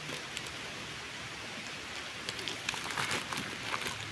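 A foil snack packet of dry instant noodles being handled, with light crinkling and crackling that comes mostly in the second half, over a steady hiss.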